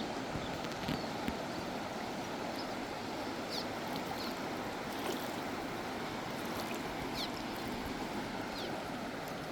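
River water flowing with a steady rush, with short high downward-sweeping bird chirps scattered through it.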